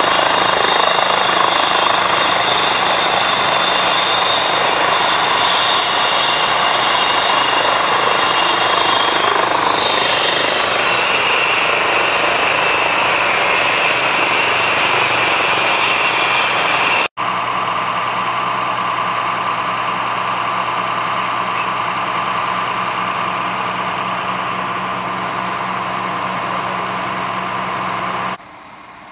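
Medical helicopter running on the ground, a loud steady turbine whine and rotor noise whose whine drops in pitch about ten seconds in. After a brief cut just past halfway, a steady engine drone with a constant low hum takes over and stops abruptly near the end.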